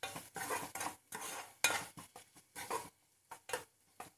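A spatula stirring and scraping onions and capsicum around a frying pan: a quick, uneven series of short scraping strokes, about two or three a second, easing off a little near the end.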